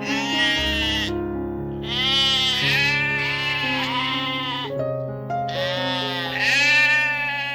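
Bleating, about four drawn-out calls of roughly a second each, each rising then falling in pitch, over background music with steady held notes.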